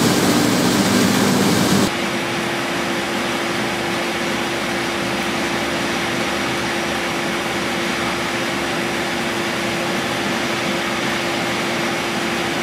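A 1954 Belliss & Morcom high-speed enclosed compound steam engine and its coupled generator running at speed, making a steady mechanical whirr with no distinct beat. About two seconds in the sound changes abruptly, and a steady hum tone carries on above the running noise.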